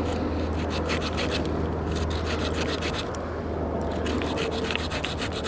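Small folding wood-saw blade of a Swiss Champ pocket knife sawing through a green branch, in quick back-and-forth strokes with a short pause about three seconds in. A steady low hum runs underneath.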